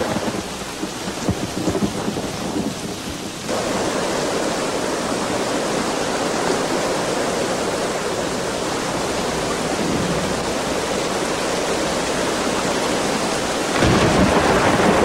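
Heavy rain and thunder. The rain jumps to a louder, steady rush about three and a half seconds in, and swells again near the end.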